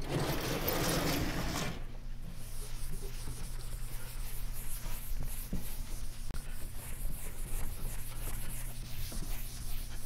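Chalkboard eraser rubbing across a blackboard in repeated sweeping strokes, a soft, uneven scratchy swish. It is preceded by a louder scraping rush in the first two seconds, with a steady low hum underneath.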